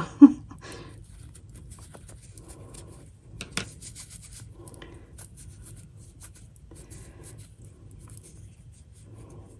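Faint rubbing and rustling of fabric as a sewn doll leg is pushed over a pencil and worked right side out between the fingers, with a click about three and a half seconds in. A short, loud bump comes right at the start.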